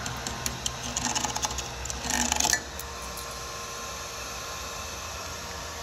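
Pliers clicking and scraping against a freshly laid dual-shield flux-core weld bead on steel plate, with a louder scrape about two seconds in. After that only a faint steady hum remains.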